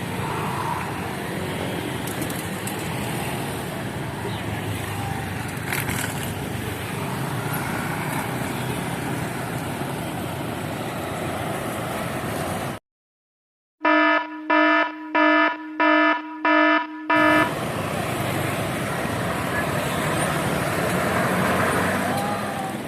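Steady road-vehicle noise, then an abrupt cut to dead silence. After it a horn sounds six short, identical toots in quick even succession, the loudest sound here, before the vehicle noise returns.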